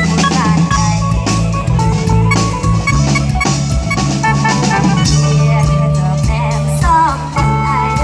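Loud amplified ramwong dance music: a steady drum-kit beat and bass under an electronic keyboard melody.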